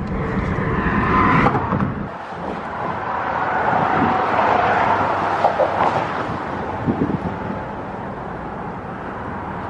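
Car driving, with a steady rush of road and wind noise; the sound changes about two seconds in.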